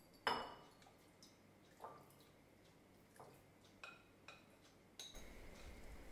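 Quiet clinks of a utensil and glass bowl as wet, marinated roasted red peppers are tipped into a ceramic serving bowl: one sharp clink just after the start, then a few lighter taps and wet drops. A low steady background noise comes in about five seconds in.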